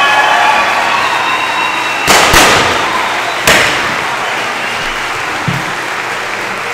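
Confetti cannons going off: two sharp bangs close together about two seconds in and a third at about three and a half seconds, over a cheering crowd.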